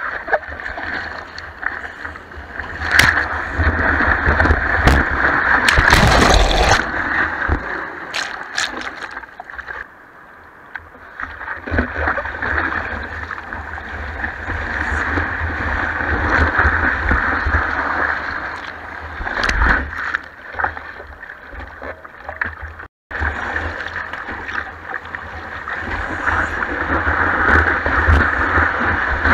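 Breaking surf and whitewater rushing and splashing over a surfboard-mounted camera as the surfer paddles through the foam, in loud uneven surges with sharp splashes. The sound cuts out completely for a moment about two-thirds through.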